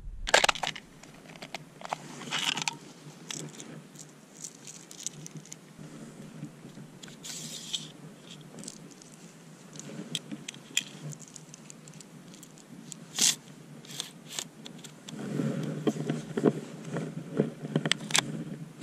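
A Marlin Model 60 .22 rifle being handled: scattered small clicks and scrapes of its metal parts among rustling of clothing and dry pine needles, with one sharper click just past the middle and busier rustling near the end.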